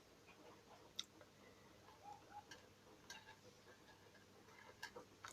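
Near silence with a few faint, sparse clicks of seed beads being threaded onto fishing line, about five over several seconds.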